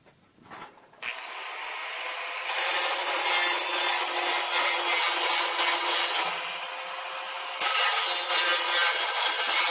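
Power tool running, which gets much louder and harsher twice as it bites into the work, with a lighter running sound between the two passes.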